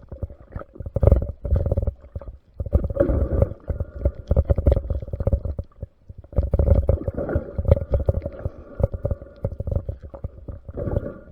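Muffled underwater rumbling and bubbling of water moving around the camera, in surges with short lulls about two and six seconds in.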